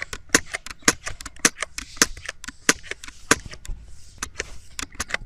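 Computer keyboard being typed on: a quick, irregular run of key clicks as numbers and spaces are entered.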